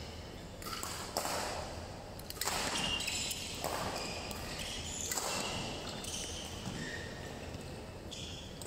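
Badminton court sounds: several sharp hits, with short shoe squeaks on the court floor between them.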